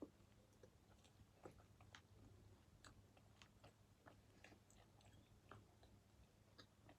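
Faint chewing of pizza: soft, irregular mouth clicks and small crunches over a low steady hum.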